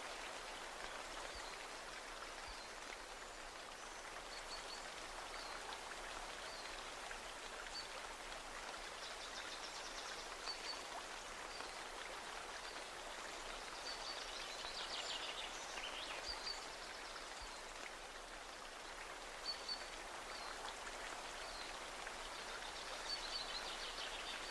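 Outdoor ambience: a steady hiss with short high bird chirps every second or so and a few quick trills.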